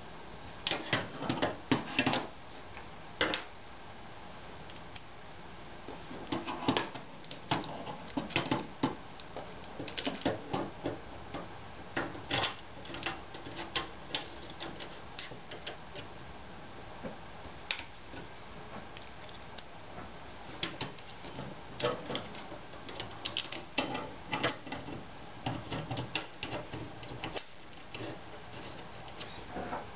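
Irregular clicks and knocks of aluminium extrusion, a steel linear rail and small bolts being handled and fitted, with a hex key working the bolts. The loudest clatter comes a second or two in.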